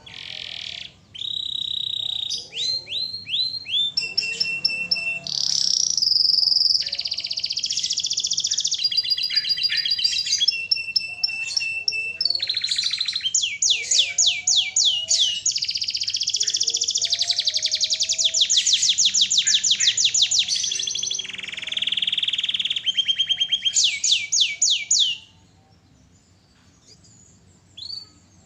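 Domestic canary singing one long, varied song of rapid trills and repeated phrases, breaking off about 25 seconds in, followed by a few short chirps near the end.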